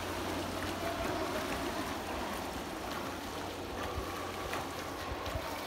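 Steady splashing and churning water from a swimmer's front-crawl strokes in a swimming pool.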